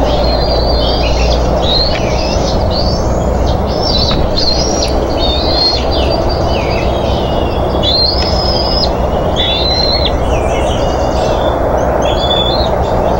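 Juvenile bald eagles giving high-pitched chittering calls again and again, typical of eaglets squabbling over food, over a steady low rumble.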